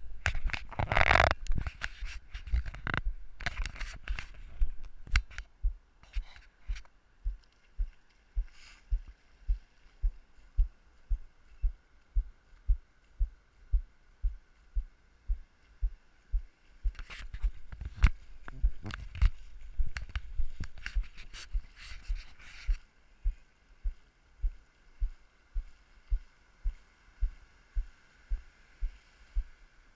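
Steady walking footsteps on beach sand, carried as dull thuds through a body-worn action camera, about three steps every two seconds. Stretches of rushing noise come near the start and about two-thirds of the way in.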